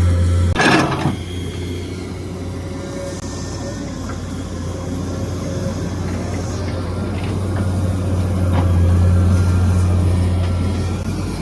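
Excavator's diesel engine running steadily with a low drone. The drone drops back about half a second in and swells again near the end, and a short harsh burst comes about a second in.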